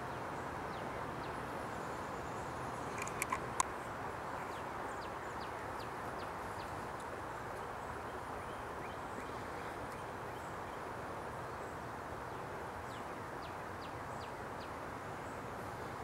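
Steady outdoor background noise with faint, short, high bird chips scattered throughout. Three sharp clicks come a little over three seconds in.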